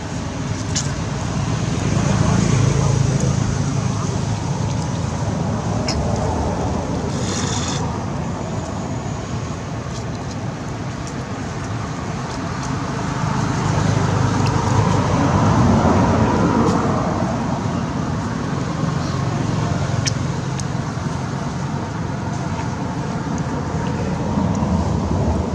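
Steady road traffic noise from passing vehicles, swelling louder about two seconds in and again around the middle as vehicles go by.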